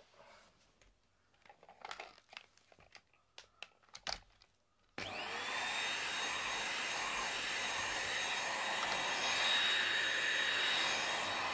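Handheld vacuum cleaner switched on about five seconds in, its motor spinning up with a brief rising whine and then running steadily with a high whine. Before it, a few light clicks and rustles.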